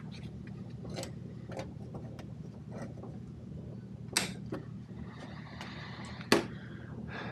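Short sharp clicks and snaps as cable ties are pulled tight and their tails cut with hand cutters on a walk-in cooler evaporator's fan motor wiring. The two loudest snaps come about four and six seconds in. A steady low machine hum runs underneath.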